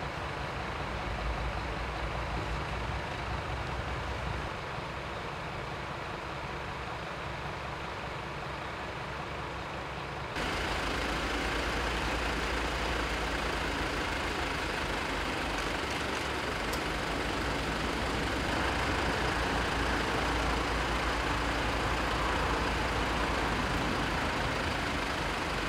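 Parked fire truck and other emergency vehicles idling, a steady low hum with hiss over it. The sound steps up louder and brighter about ten seconds in.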